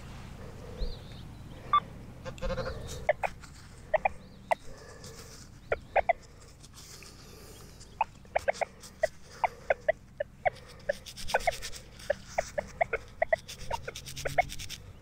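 Short, rapid clucks in quick uneven runs, sparse at first and thickening about halfway through: a chicken clucking.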